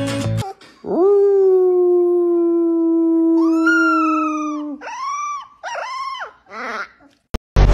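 A man howls one long, slightly falling low note, and a three-week-old puppy joins in with a higher howl partway through. The puppy then gives two short rising-and-falling howls and a few small squeaky yelps.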